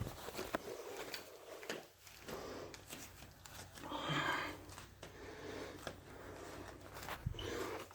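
A man breathing hard through the nose and mouth while exercising, with irregular rustles and small knocks of movement; the loudest breath comes about four seconds in.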